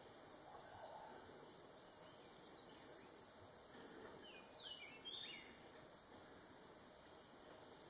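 Montezuma's oropendola calling faintly, a brief run of gliding notes falling in pitch about four and a half seconds in, over near silence with a steady hiss.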